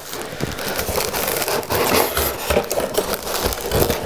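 Cardboard and plastic wrapping rustling and crackling as hands work inside a box, with many small knocks and clicks.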